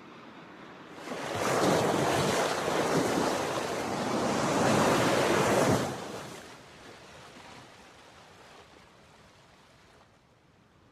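Ocean surf: a long wash of waves that swells about a second in, holds, and dies away after about six seconds into a faint hiss.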